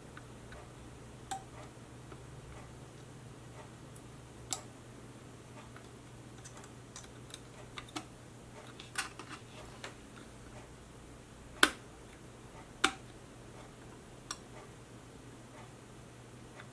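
Scattered small clicks and taps of small light-strip parts being handled and fitted by hand, with two sharper clicks about three-quarters of the way through, over a faint steady low hum.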